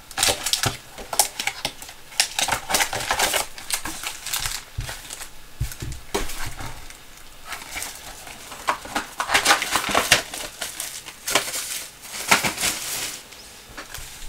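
Plastic wrapping crinkling and tearing as a box and packs of basketball trading cards are opened, in irregular crackly bursts with sharper rips here and there.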